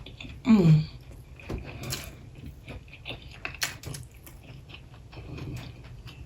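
Close-miked chewing and mouth sounds of someone eating crunchy fried snack balls, a run of short wet clicks and crunches. About half a second in comes a short vocal sound that falls in pitch.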